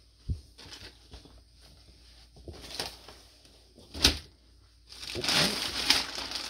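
Plastic packaging bags crinkling and rustling as clothes are handled, with a sharp snap about four seconds in and heavier, continuous rustling from about five seconds in.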